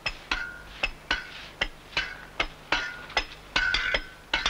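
Stonemasons' steel hand tools striking a sandstone block while dressing its face: quick, irregular blows, about three a second, each a sharp crack with a short metallic ring.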